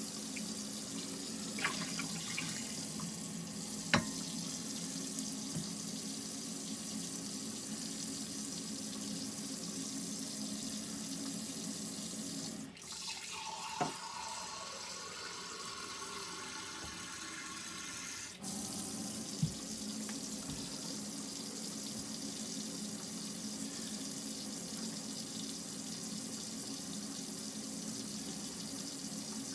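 A camper's faucet running a steady stream of hot water into the sink from the Alde water heater, left open to see how long the hot water lasts. A few sharp clicks sound over the flow, and for about five seconds midway the sound of the stream changes, then returns.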